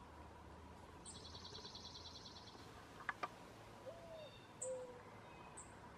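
Faint bird calls: a rapid high trill lasting about a second and a half, a few very short thin chirps, and two short low calls later on. Two sharp clicks come about halfway through.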